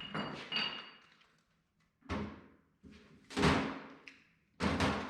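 About five heavy metal clanks and knocks spaced roughly a second apart, the first two ringing briefly: work on the back cover of a tractor touch control housing during teardown.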